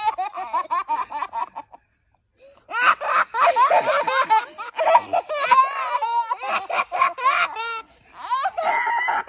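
Young children laughing hard in fits of high-pitched, quick repeated laughs, with a brief pause about two seconds in.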